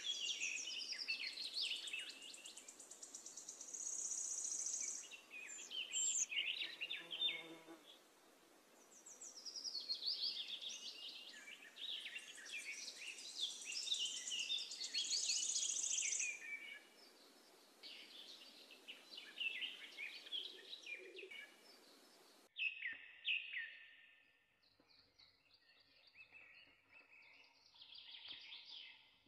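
Birds chirping and singing: many short, quick, rising and falling calls over a steady hiss. The hiss cuts off abruptly about two-thirds of the way through, and fainter chirps carry on after it.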